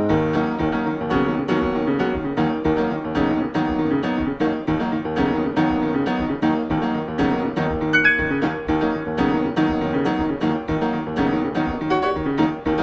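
Background music: a keyboard instrument playing quick, evenly repeated notes at a steady pace.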